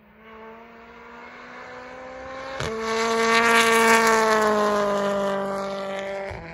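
A BTCC touring car's turbocharged four-cylinder engine passing at speed at a steady high pitch. It builds as the car approaches, is loudest as it goes by, then drops slightly in pitch and fades as it moves away.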